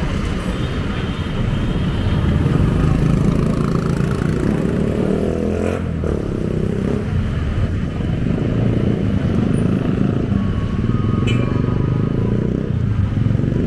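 Street traffic: vehicle engines running and passing close by, a steady low engine noise throughout.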